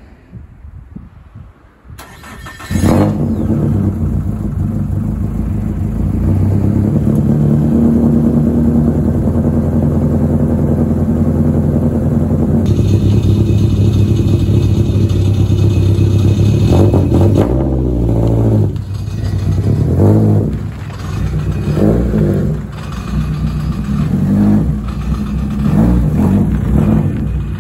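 Nissan S13 Silvia's naturally aspirated 2.2-litre four-cylinder, on four individual throttle bodies with a straight-pipe exhaust, starts suddenly about three seconds in and idles loudly and steadily. From a little past halfway its note rises and falls unevenly with the throttle as the car moves off at low speed.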